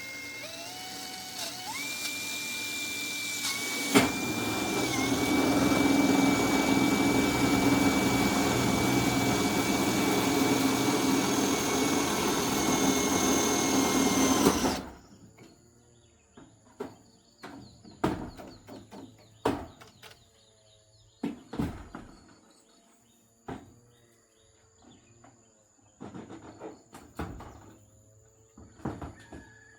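A power tool's motor spins up and runs with a steady high whine for about fifteen seconds, then cuts off suddenly. Scattered knocks and taps follow.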